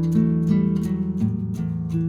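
Background music: acoustic guitar plucking and strumming ringing notes in a steady rhythm.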